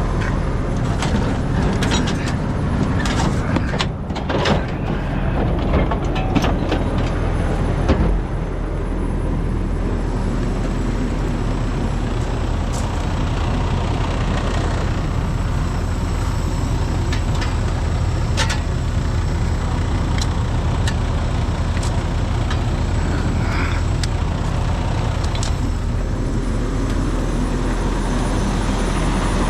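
Large diesel truck engine idling steadily, with scattered metallic knocks and clanks during the first eight seconds or so and a few single ones later.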